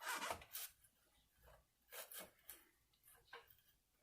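Faint scratching and rubbing as a rubbery sluice mat is handled: a brief scratchy burst at the start, then a few short, quiet scuffs.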